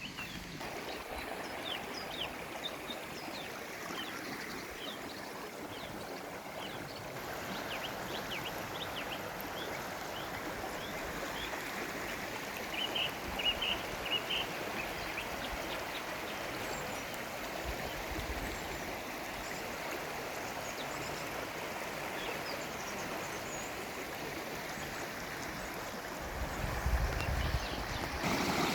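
Stream running with a steady rush of water, small birds chirping over it, including a quick run of chirps about halfway through. A low rumble comes in near the end.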